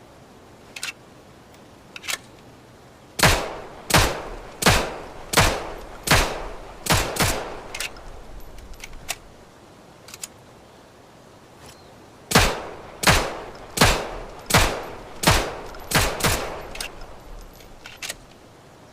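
M1911 .45 pistol firing two strings of seven shots, about 0.7 s apart with the last two of each string closer together, each shot followed by a short echoing tail. A couple of lighter mechanical clicks come before the first string, and another in the pause between strings.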